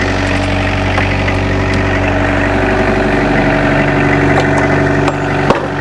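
Excavator diesel engine idling steadily, its alternator recharging a run-down battery. There is a brief knock about five and a half seconds in.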